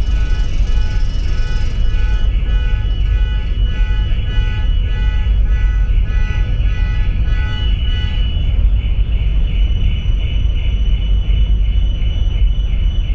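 Steady low rumble aboard a cruise ferry under way. A faint tune with a regular beat, about two pulses a second, plays over it and fades about two-thirds of the way through.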